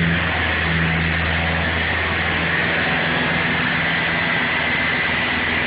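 John Deere 7775 skid steer loader's diesel engine running steadily, a constant low hum with a thin steady whine above it.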